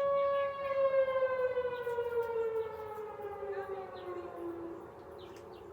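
Outdoor emergency warning siren sounding on a test: it holds one steady tone, then winds down, its pitch falling slowly from about half a second in and fading toward the end.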